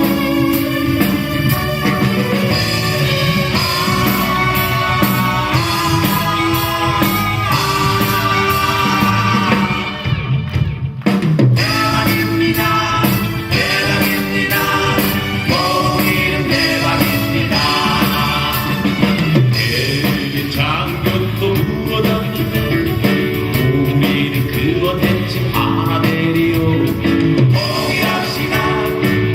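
Live rock band with drums, electric guitar and keyboard playing a new song, with a short break in the music about ten seconds in.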